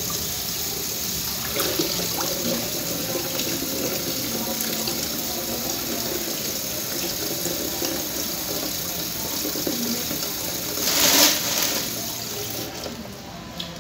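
Kitchen tap running into a sink basin while red grapes are rinsed and handled under it, with a louder gush about eleven seconds in. The flow then stops near the end.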